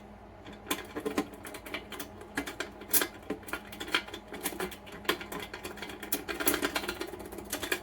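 Quick, irregular clicking and light metallic rattling from the small wafer lock and metal book safe being handled, with several sharper clicks among them.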